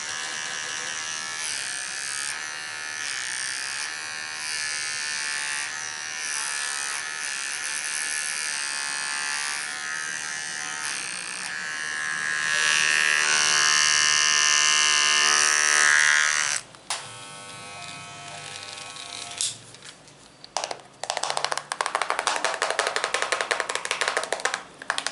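A small handheld electric device, shaver- or clipper-like, buzzes steadily, gets louder for a few seconds past the middle, then cuts off suddenly. After a short lull, fast, dense tapping clicks fill the last few seconds.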